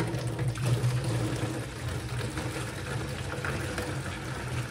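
Scuppernong grape juice pouring steadily from a plastic bucket through a funnel into a gallon jug.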